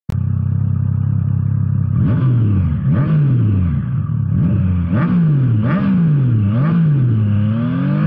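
Triumph Trident 660's liquid-cooled three-cylinder engine idling for about two seconds, then revved in a string of quick throttle blips, each rising and dropping back toward idle.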